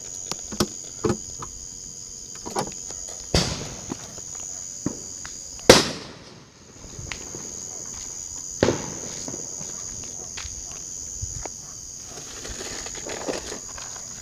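Fireworks going off in the distance: a few sharp bangs, the loudest about halfway through, with smaller pops between, over a steady high chirring of insects.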